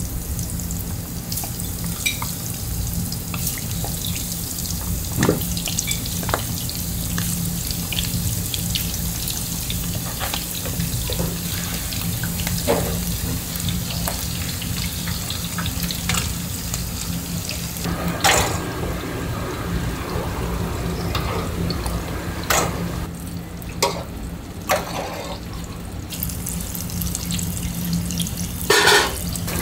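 Breaded jumbo shrimp deep-frying in a commercial fryer: a steady sizzle of bubbling oil over a low hum, with a few sharp metal clinks now and then.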